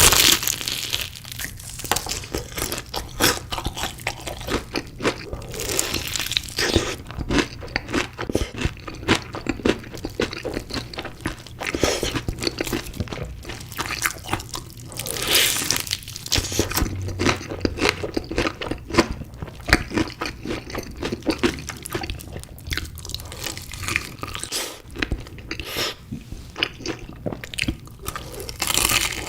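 Close-miked eating of chicken pieces in spicy sauce: a continuous run of crisp crunching and chewing, with louder bites at the start and about halfway through.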